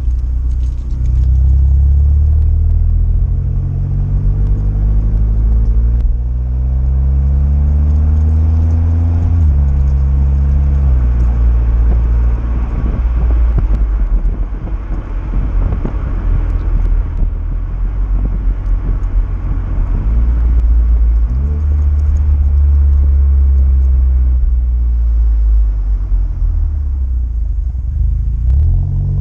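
Exhaust of a VW Golf 7 GTI Clubsport's 2.0-litre turbocharged four-cylinder through a Friedrich Motorsport 76 mm cat-back system with front silencer, heard close to the tailpipes while driving. The note rises under acceleration and drops with gear changes about nine and eleven seconds in and again near the end.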